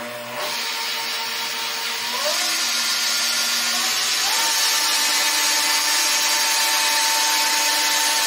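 WM210-V mini lathe spindle driven by a 750 W sewing machine servo motor, running up with a steady whirring hiss and whine. The speed goes up in two steps, about two and four seconds in, each time the whine jumping to a higher steady pitch.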